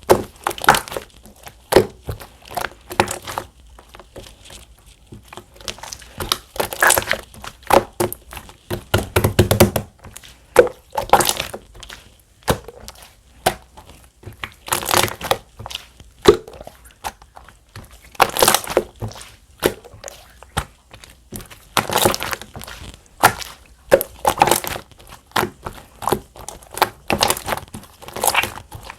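Clear slime being squished, stretched and folded by hand, giving irregular sticky pops, clicks and crackles, with a thicker run of squelching about a third of the way in.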